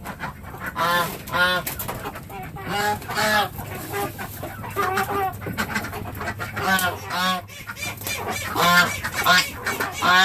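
Chickens and ducks calling: a run of short, repeated squawks and quacks, several close together, with brief gaps between runs.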